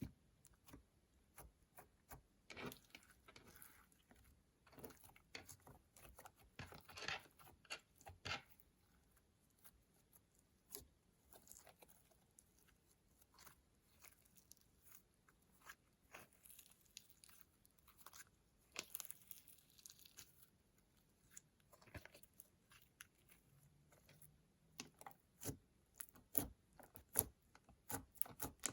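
Slime being worked and mixed: faint, irregular sticky crackles, pops and squelches as it is pressed and pulled apart.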